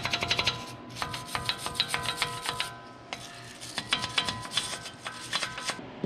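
Hand wire brush scrubbing scaled rust off the bare wheel hub of a 2016 Ford Edge in quick back-and-forth strokes, in three spells with short pauses between. The hub metal rings under the brush.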